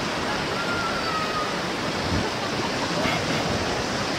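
River rapids: a steady rush of whitewater around an inner tube being carried down the rapid.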